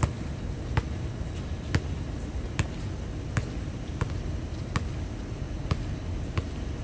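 A basketball bouncing on an outdoor hard court: about nine sharp bounces a little under a second apart, like a steady dribble, over a steady low background rumble.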